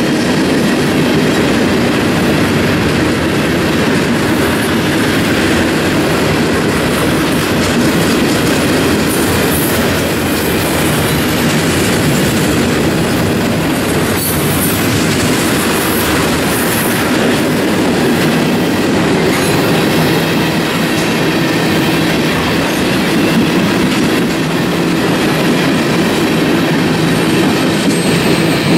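Freight cars (boxcars, coil-steel cars and tank cars) rolling past close by: a steady, loud rolling noise of steel wheels on rail, with a fast clatter from the wheels and some high-pitched wheel squeal in the middle.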